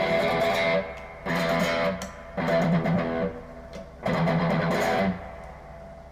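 PRS SE Custom 24 Roasted Maple electric guitar, with a roasted maple neck and fingerboard, played through an amp in four short phrases with brief stops between them; the last phrase is left to ring and fade out.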